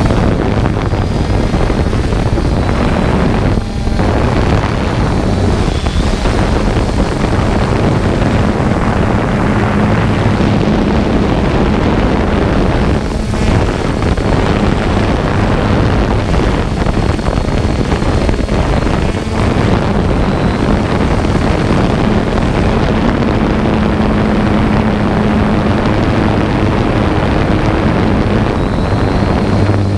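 A drone's motors and propellers running steadily in flight, heard from up close on board as a loud hum that wavers slightly in pitch. Wind noise buffets the microphone.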